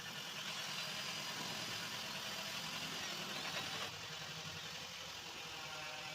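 Car engine idling steadily with a continuous low hum.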